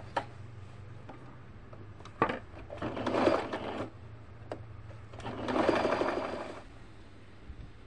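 Portable electric sewing machine stitching in two short runs of about a second each, sewing folded pleats down one at a time. A sharp click comes just before the first run.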